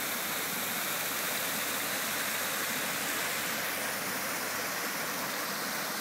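Water from a man-made rock waterfall spilling over boulders into a swimming pool, a steady rush of splashing water.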